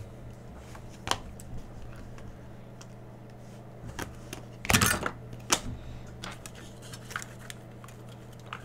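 2019-20 Panini Prizm basketball cards being handled and flipped through by hand: scattered light clicks and snaps, the loudest a short cluster about five seconds in. A steady low electrical hum runs underneath.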